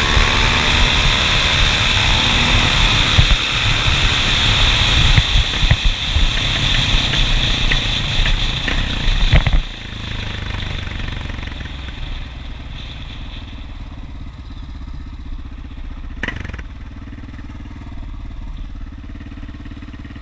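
Dual-sport motorcycles running hard under a loud rushing noise, with engine pitch gliding. About ten seconds in the loud rush cuts off suddenly, and a motorcycle engine runs on more quietly and steadily at low speed.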